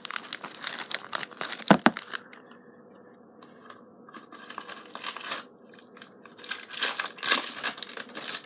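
A yellow padded mailer being torn open and its packaging crinkled by hand. There is a run of tearing and rustling in the first two seconds, quieter handling in the middle, and more crinkling bursts in the last few seconds.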